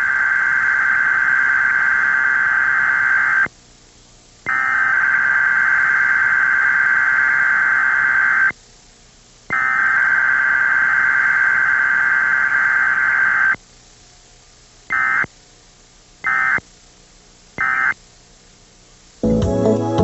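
Emergency Alert System digital data tones (SAME header). Three long bursts of about four seconds each, with second-long gaps between them, are followed by three short end-of-message bursts. Music starts again near the end.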